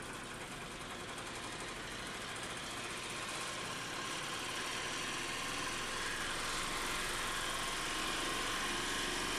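Paul Harry Sprain's homemade magnetic motor running, its rotor giving a steady mechanical whir with a faint steady whine, growing gradually louder.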